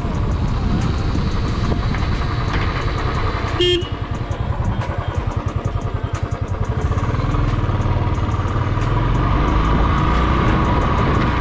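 Royal Enfield Bullet single-cylinder engine running under way, picked up by the GoPro's own microphone, with a short horn beep about four seconds in; for a few seconds after the beep the engine's low, even thump comes through as the loudness dips.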